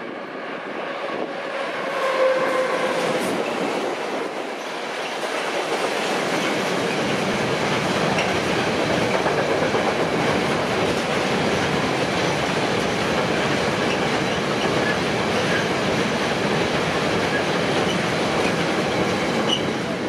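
A train passing over the level crossing, its wheels running on the rails in a loud, steady rolling rush that swells about six seconds in and holds.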